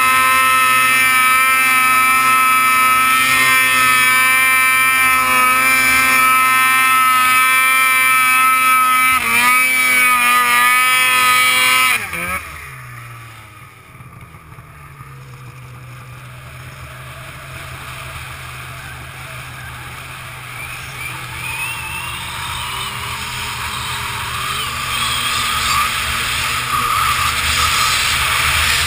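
Snowmobile engine running at high steady revs on a steep hill climb, its pitch wavering for a few seconds, then dropping sharply about twelve seconds in as the throttle is let off. The engine settles to a low idle while the sled coasts downhill, with a rushing noise slowly growing louder.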